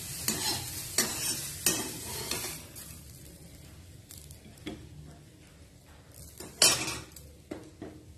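Slotted steel spoon scraping and stirring boiled banana peels in a hot steel frying pan, with a light sizzle as the peels dry-fry. Several scrapes come in the first couple of seconds, then a single louder scrape near the end.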